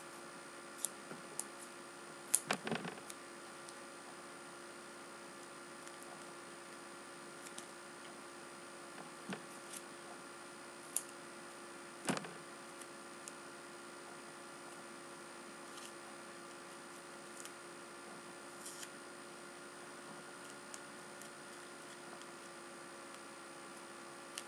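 Steady electrical hum with scattered soft clicks and brief rustles of black tape being pulled, cut and pressed onto an eyeglass lens, the most noticeable just after two seconds and again around twelve seconds.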